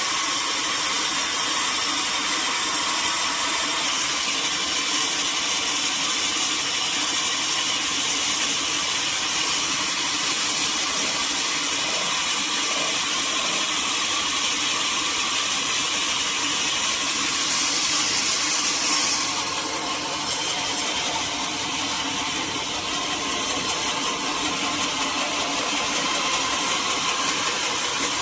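Sawmill saw running steadily, with a brighter, louder stretch about eighteen seconds in that drops off a second later.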